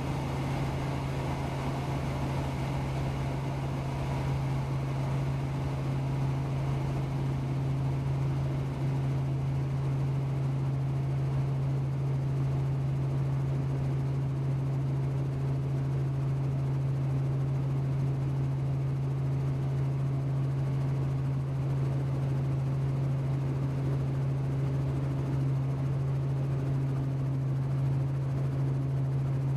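Light helicopter's engine and rotors running, heard from inside the cockpit: a steady low drone with a constant hum under it, on a descending approach to land.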